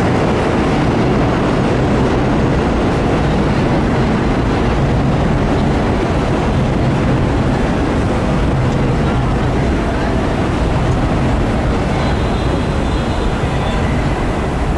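R188 subway train running on the rails: a steady, loud rumble of wheels and running gear with a low hum underneath, and a faint high whine joining near the end.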